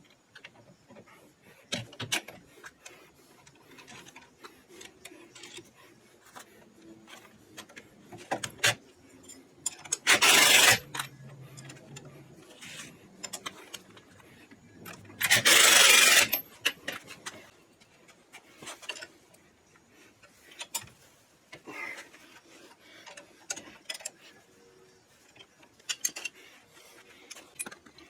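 Workshop assembly noises: scattered clicks, knocks and rattles of hand tools and metal parts, with two loud bursts of noise about a second long in the middle, the second one a little longer.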